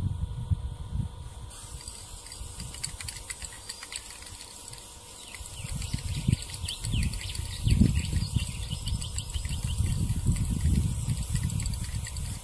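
Aerosol spray paint can hissing steadily from about a second and a half in, as green paint goes onto the edges of a window frame. Wind rumbles on the microphone underneath, and birds chirp in the background.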